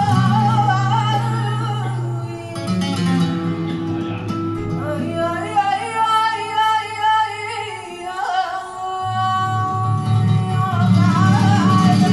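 Live flamenco zambra: a woman sings long, wavering notes over flamenco guitar accompaniment. The guitar's low notes drop away for a few seconds in the middle and return near the end.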